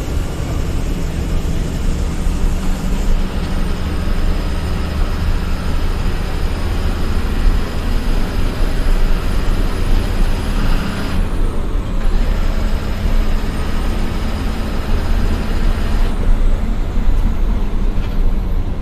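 Bus driving along the highway: steady engine drone and road rumble, with no break.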